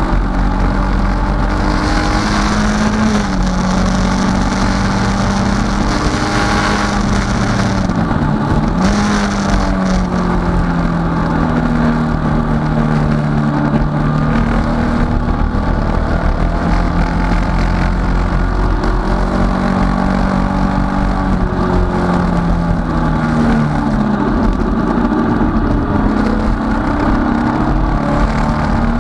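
Datsun 510 race car's four-cylinder engine at racing speed, heard from inside the cockpit over steady road and wind noise. Its pitch rises and falls with throttle and gear changes, with a sharp dip about eight seconds in.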